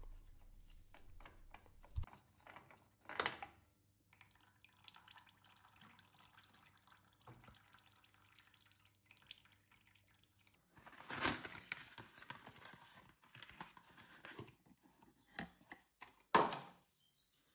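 Oil filter being unscrewed by hand from a lawn tractor engine, with oil dripping and soft handling knocks and rustles; a sharper knock near the end.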